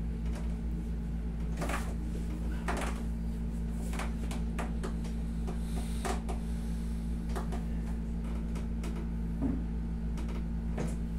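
Steady low hum of a wall-mounted window air conditioner running, with occasional soft knocks and rustles from a leg being lifted and stretched on a padded massage table.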